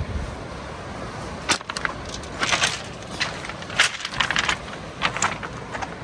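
Footsteps crunching and clattering on beach cobbles and pebbles, an uneven run of crunches starting about a second and a half in, over a steady low rush of surf and wind.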